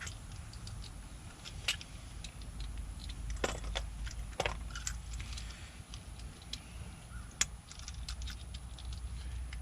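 Scattered metallic clicks and clinks of door-lock parts and tools being handled while a lockset is taken apart, a few sharp clicks standing out over a low rumble.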